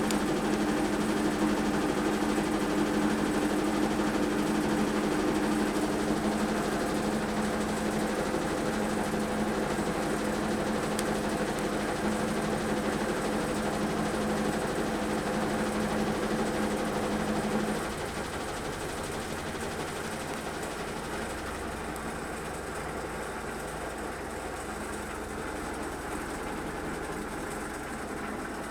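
Washing machine in its spin cycle, running with a steady hum. About two-thirds of the way through, the hum cuts out and the sound drops to a quieter, lower rumble.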